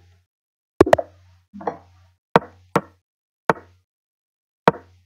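Online chess move sounds as pieces are played at blitz speed: sharp wooden clicks, about seven at irregular spacing, two of them in quick succession about a second in, each with a short low thud.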